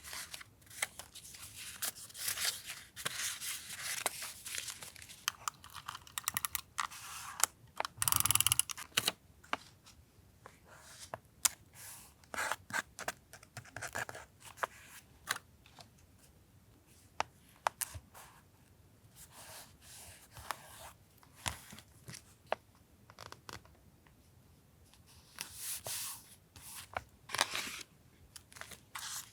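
Paper being handled for collage journaling: tearing and rustling of paper with many small taps and clicks, and a louder burst of tearing about eight seconds in.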